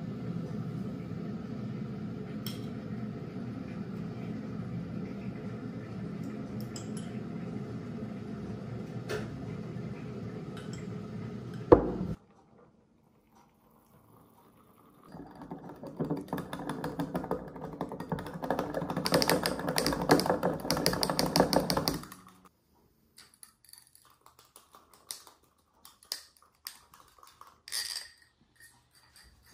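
Hot water poured from a stainless electric kettle into a small glass for about seven seconds, a dense rushing stream. Before it, a steady rumbling noise that cuts off abruptly; after it, a few light clicks of glassware.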